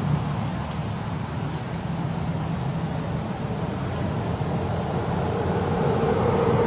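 Steady outdoor background noise with a low rumble, with a couple of faint clicks about a second in.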